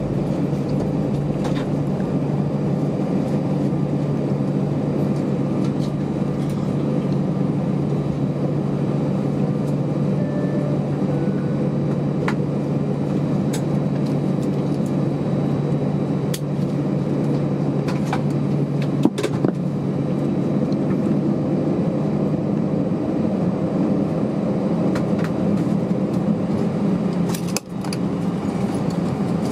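Steady low hum of an Airbus A320 cabin while the airliner taxis on its idling jet engines, with a few faint clicks.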